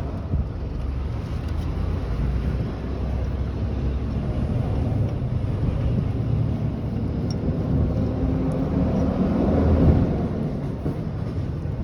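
Suzuki Jimny JB23's 660 cc three-cylinder turbo engine running steadily, getting a little louder about ten seconds in.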